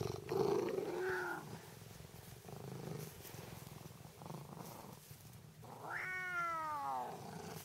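Tonkinese cat purring close up, the purr fading out within the first second or two, then one long meow falling in pitch about six seconds in: an attention-seeking call.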